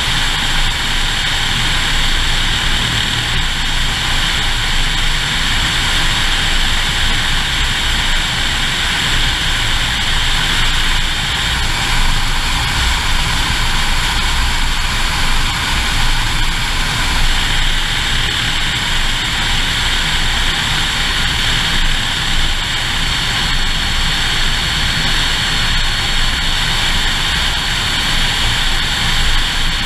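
Single-engine Cessna's piston engine and propeller running steadily during the approach to landing, mixed with a loud, even rush of wind over a camera mounted on the outside of the fuselage.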